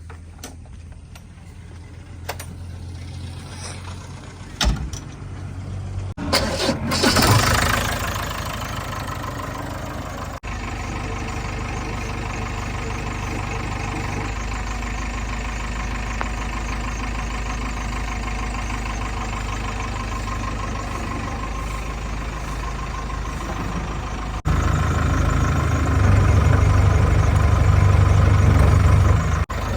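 Heavy diesel engines of a backhoe loader and tractors running. There is a loud surge about seven seconds in, then a steady drone that gets louder near the end.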